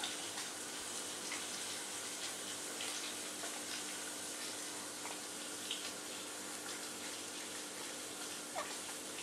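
Steady, even hiss with a faint steady hum beneath it and a few faint short ticks.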